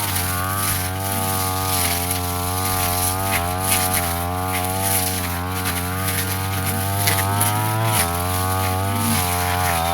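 Brush cutter engine running steadily at cutting speed, its pitch wavering slightly as the load changes, with brief scratchy hits as the head cuts through short grass.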